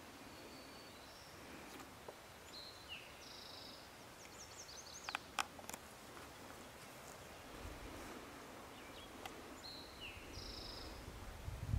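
A songbird sings a short, high, buzzy phrase near the start and repeats it near the end, over faint outdoor background noise. A few sharp clicks come around the middle, and a low rumble builds in the second half.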